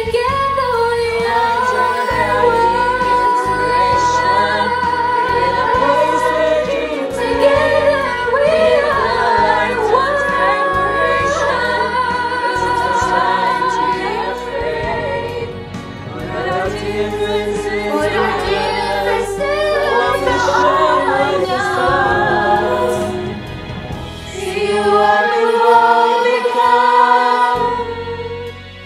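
A choir of young voices singing a slow song together, with sustained held notes. The singing dips briefly near the end.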